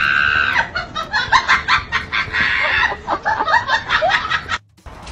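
Chicken clucking and squawking in a rapid string of short calls, cutting off suddenly near the end.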